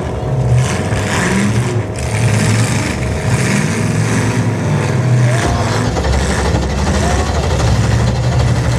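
Demolition derby cars with 1980s-era engines running and revving together in a loud, continuous din, with a few short rising squeals in the second half.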